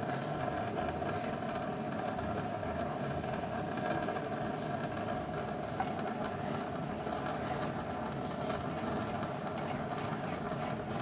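A small motor running steadily with an even hum.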